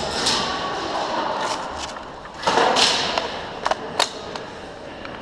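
Airsoft rifle magazine being swapped: a short rattle and scrape about halfway through, then two sharp clicks as the magazine and gun are worked, over a steady hiss.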